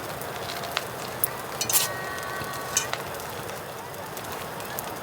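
Food sizzling in a hot pan, a steady hiss broken by a few sharp pops, the loudest about two seconds in.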